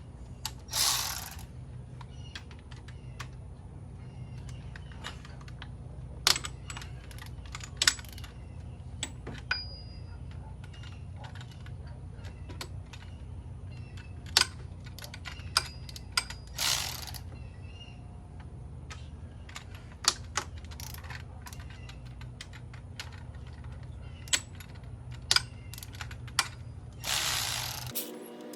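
Socket ratchet clicking in short runs as the 13 mm water pump bolts are undone, with scattered metal clinks. There are three brief louder rasps, one about a second in, one midway and one near the end, over a low steady hum.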